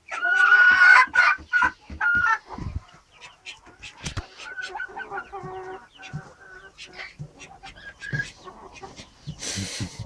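Silkie chickens clucking and calling in short, repeated calls, loudest in the first second or so. A brief rustle comes near the end.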